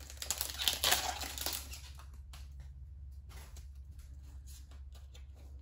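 Foil booster pack wrapper being torn open and crinkling for about two seconds, then quieter light ticks and slides of the trading cards being handled.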